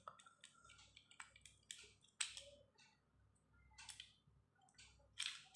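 A handful of faint, scattered plastic clicks as a Beyblade ripcord launcher and its ripcord are handled; otherwise near silence.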